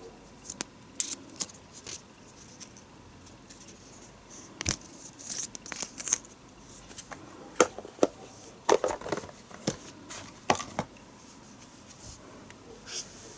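Hands handling and opening product packaging: irregular rustling and tearing of paper or plastic, with light clicks and taps.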